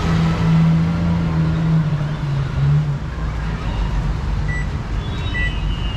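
Street traffic with a vehicle engine running close by: a steady low hum for the first few seconds, then general traffic noise. Two short high beeps come near the end.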